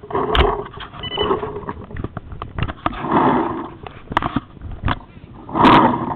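Knocking, rubbing and clicking of a camera being jostled and handled, with a few louder bursts of muffled voice.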